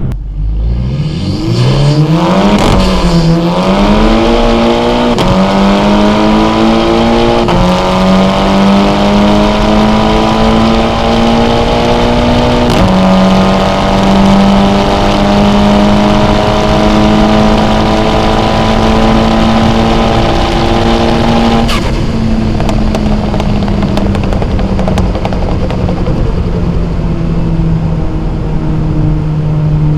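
Car engine with a loud exhaust accelerating hard up through the gears: the note climbs, then steps down at each of about four shifts in the first dozen seconds. It then holds a steady high-revving cruise, easing off slightly around two-thirds of the way in.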